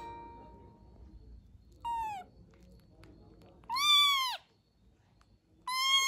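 A small kitten meowing three times, high-pitched; the second meow is the loudest and longest.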